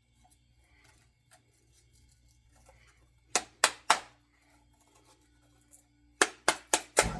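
Sharp clacks of a tool and wood being handled, three in quick succession and then four more, followed right at the end by a power sander switching on and starting to run.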